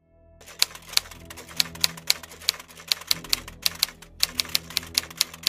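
Typewriter keys clacking in an irregular run, about four strikes a second.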